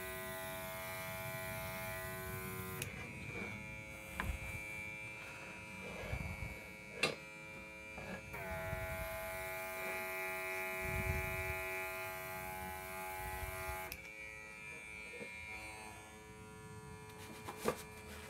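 The small built-in compressor of a Worx WX742 Maker X 20V airbrush running with a steady buzz. Its pitch steps down a little about three seconds in, back up around eight seconds and down again around fourteen seconds, with a few light knocks from handling.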